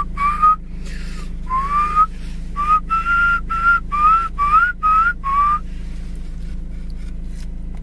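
Whistling: a tune of about ten short notes, each sliding upward in pitch, which stops about five and a half seconds in. A steady low hum lies underneath.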